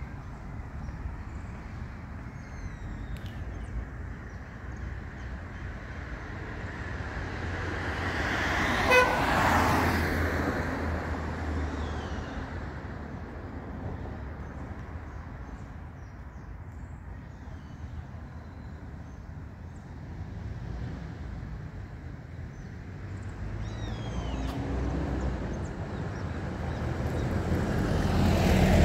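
Cars passing on a quiet street over a steady traffic hum. One car swells past about a third of the way in, with a brief horn toot as it goes by, and another builds up near the end. Faint bird chirps come in between.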